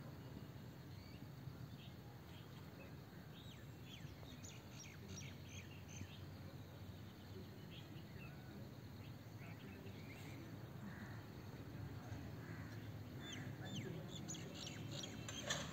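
Small birds chirping in short, scattered calls that grow busier near the end, over a faint steady low rumble of outdoor background noise.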